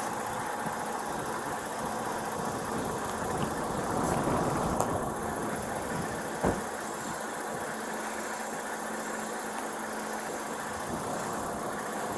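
Steady hum of an idling vehicle engine, picked up by a police body camera, with one short knock about six and a half seconds in.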